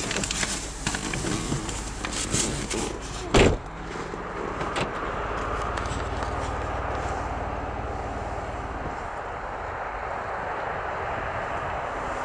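Car running, heard from inside the cabin as it turns and drives slowly: a few knocks and clunks in the first few seconds, the loudest about three and a half seconds in, then a steady engine and road hum.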